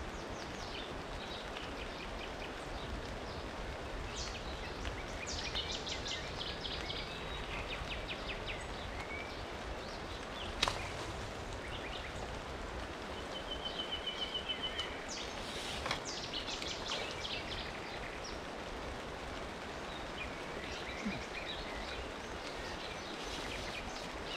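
Steady hiss of rain falling on the river and the leaves, with small birds chirping and singing in snatches, including a rapid high trill a little past halfway. Two sharp clicks, one a little before halfway and one a little after.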